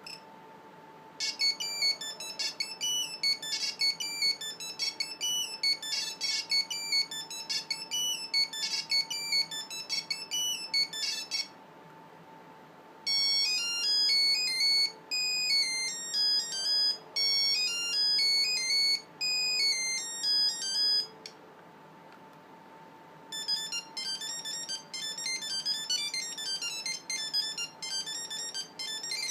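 Nokia 5510 mobile phone playing its built-in monophonic ringtones one after another: three different beeping melodies, about ten, eight and six seconds long, each separated by a short pause.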